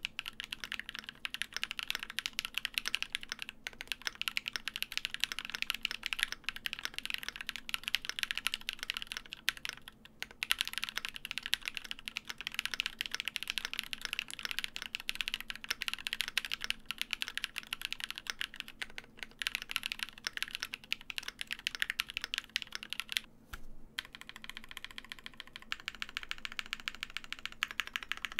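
Continuous fast typing on a gasket-mounted custom mechanical keyboard with Durock POM linear switches, a polycarbonate plate and case foam: a dense run of crisp bottom-out clicks. About three quarters of the way through, the typing stops briefly. It then gives way to slower, quieter presses of the stabilized modifier keys.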